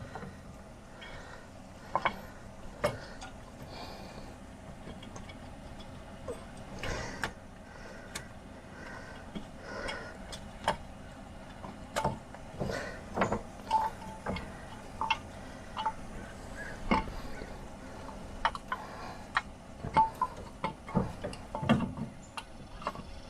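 Irregular clicks, taps and light metallic clinks of hand tools and parts being handled while working on a John Deere 310 backhoe's reverser solenoid housing, a few ringing briefly.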